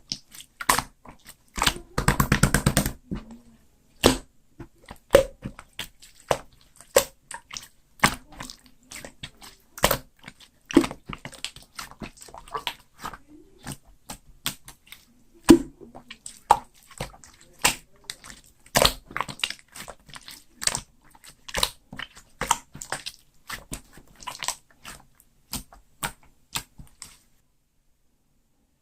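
Clear slime being pressed, folded and stretched by hand, making irregular sharp wet clicks and pops. A quick run of crackling comes about two seconds in. The sounds stop shortly before the end.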